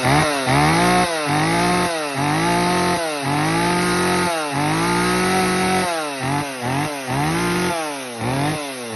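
Stihl 023 two-stroke chainsaw running, its throttle blipped over and over: about a dozen quick revs that rise and fall back, with a couple of longer holds at high revs in the middle. The saw was recently sorted out after running a little rough.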